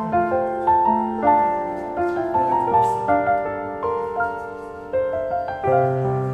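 Background piano music: a melody of overlapping notes over chords, with a low bass note coming in near the end.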